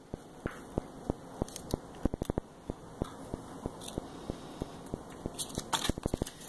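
Irregular soft clicks and crackles, several a second, from fingertips pressing and rubbing a vinyl decal down onto a stand mixer's painted body.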